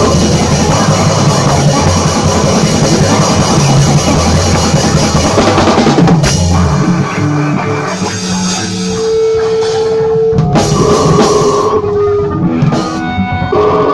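Live rock band rehearsal: electric bass and drum kit playing loud, distorted noise rock. About six seconds in the heavy low end drops away, leaving a few held, ringing tones, and the full band comes back in near the end.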